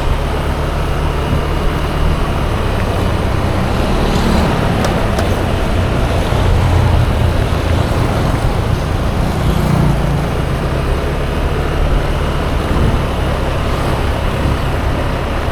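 Riding noise from a Yamaha Aerox 155 scooter in city traffic: a steady low rumble of engine, wind and road, with other vehicles around.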